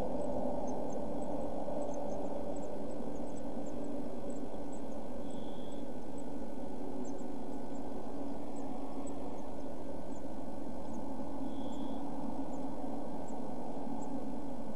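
Steady low hum and hiss from the nest box camera's audio, with faint, very short high peeps from blue tit chicks scattered throughout. A brief higher tone comes twice, about five and a half and twelve seconds in.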